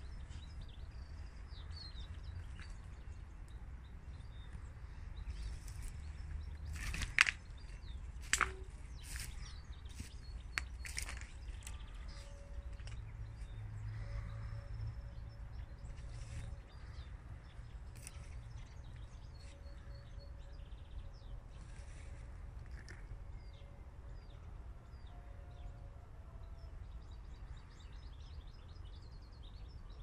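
Faint twittering and chirping of small finches, Eurasian siskins, over a steady low background rumble. A few sharp clicks sound about seven and eight seconds in.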